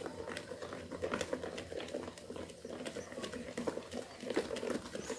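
Flour being stirred by hand into carrot cake batter in a bowl: a steady run of soft, irregular wet clicks and scrapes from the utensil working the thick batter.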